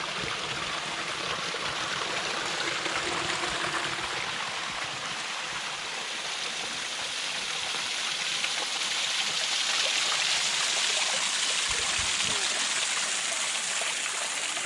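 Stream water rushing and splashing steadily, a little louder from about nine seconds in.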